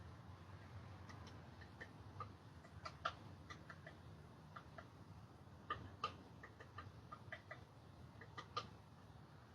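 Faint, irregular clicking and short chirps coming from a tree, made by an unseen creature inside it, a few louder ticks standing out about three, six and eight and a half seconds in.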